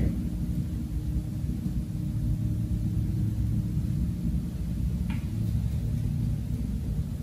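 Steady low background hum, with one light tap about five seconds in.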